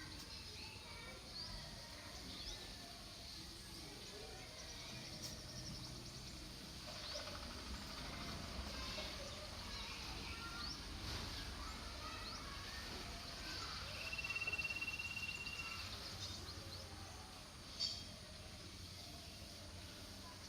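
Outdoor background noise with scattered short high bird chirps. About two-thirds of the way in, a steady high trill lasts about two seconds, and a single sharp click comes near the end.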